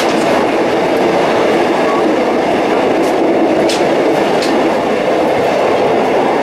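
Steam-hauled passenger train carriage running along the track: a steady, loud rumble of wheels on rails, with three faint clicks near the middle.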